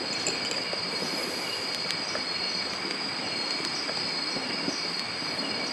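Steady chorus of night insects such as crickets, several high-pitched trills held constant over an even hiss.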